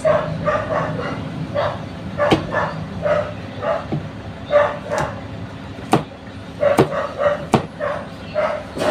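A dog barking in short, repeated yips, mixed with sharp knocks from a large knife chopping carrots on a cutting board.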